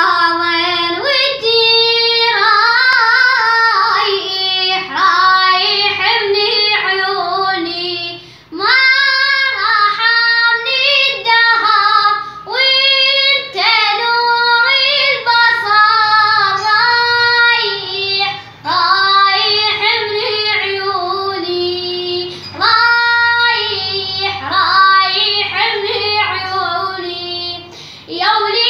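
A boy singing a Husseini elegy in Arabic, unaccompanied, in long ornamented phrases with short pauses for breath between them.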